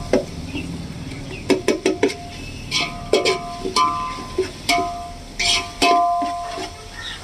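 Background music: a light tune played on a plucked string instrument, note after note.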